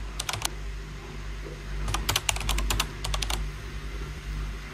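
Computer keyboard typing sound effect: a short run of keystroke clicks at the start and a longer, faster run around the middle, over a low steady hum.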